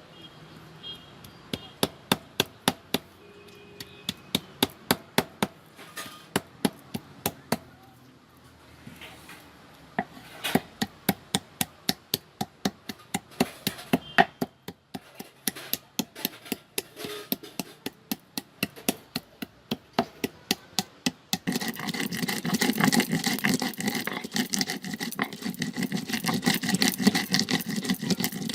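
Stone grinder (sil batta): the stone roller knocks down on the stone slab in runs of about three sharp knocks a second, crushing the ingredients. About three-quarters of the way through it changes to a louder, continuous rough grinding with quick back-and-forth strokes of stone on stone.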